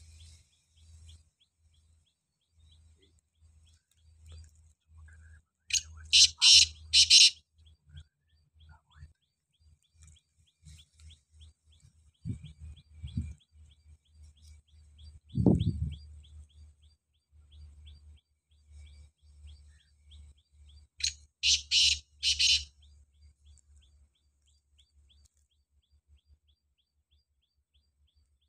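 Black francolin calling twice, about fifteen seconds apart; each call is a loud, harsh phrase of about four rapid notes. A single low thump comes about halfway through, with faint high chirping between the calls.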